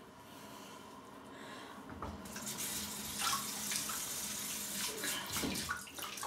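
Bathroom sink tap turned on about two seconds in and running, with irregular splashing as the face is rinsed after a wet shave.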